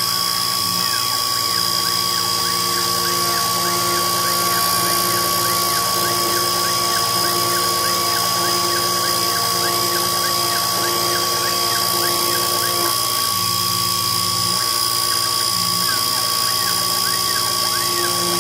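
Sherline Model 2010 CNC milling machine running its spindle at about 10,000 rpm with a carbide tool cutting 7075 aluminium, a steady whine. Over it, the axis stepper motors whine in a rising-and-falling pitch about twice a second as the table moves.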